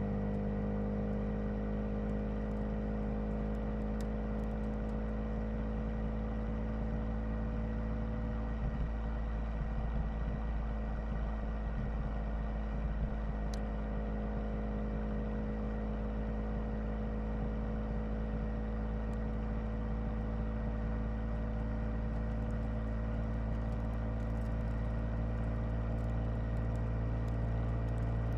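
Nissan 370Z's 3.7-litre V6 engine running steadily, its note holding at a nearly constant pitch.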